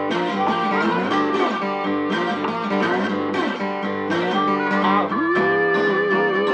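Background music: a bluesy guitar tune of picked notes with string bends, holding a long wavering note from about five seconds in.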